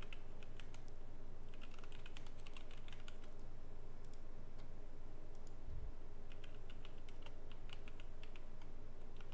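Computer keyboard typing in several short bursts of rapid key clicks, with pauses between them, over a steady low hum.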